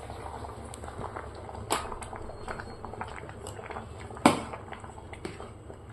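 Kitchen handling sounds: scattered light clicks and knocks of utensils and dishes, with one sharp knock about four seconds in.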